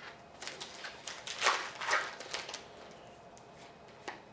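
Foil trading-card pack wrapper being torn open and crinkled by hand, a run of crackly rustles that is loudest about a second and a half in and dies away by about two and a half seconds in.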